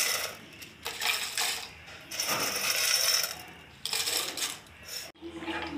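Rattling and scraping in several bursts as dried rice ada pieces are tipped into a pot of coconut milk to cook for ada pradhaman. The sound cuts off suddenly about five seconds in.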